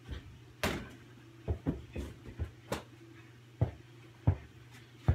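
A small basketball, about six inches across, bouncing: about nine sharp, irregular thuds, a few in quick succession in the middle and then more widely spaced.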